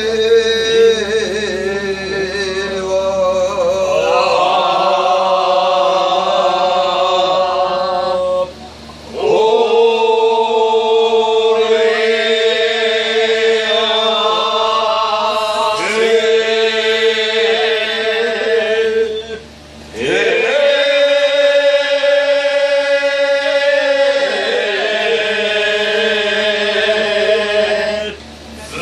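A male voice singing a kiyari-uta, a traditional Japanese work chant, in long drawn-out, wavering phrases, with brief pauses for breath about every ten seconds.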